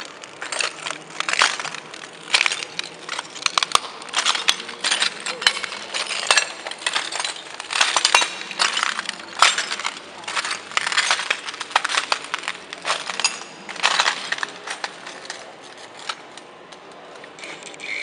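Shattered sheet glass crunching and cracking underfoot on a glass-covered floor: a dense, irregular run of sharp cracks and clinks that thins out over the last couple of seconds.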